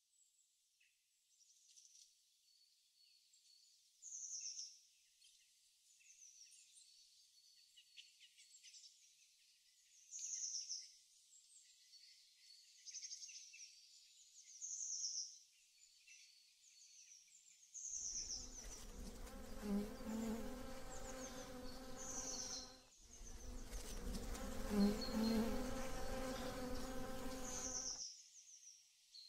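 A bee buzzing close by for about ten seconds, beginning about two-thirds of the way through, with a brief break in the middle. A bird gives short high chirps every few seconds throughout.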